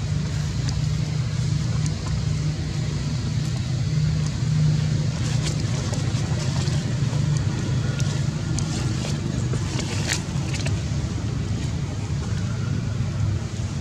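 Steady low rumble with a few faint clicks, the loudest click about ten seconds in.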